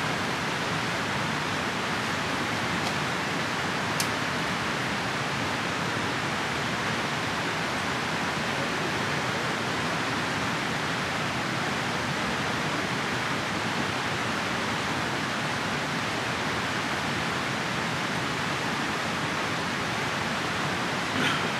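Steady rushing of a mountain river, an even noise that holds without change, with a single light click about four seconds in.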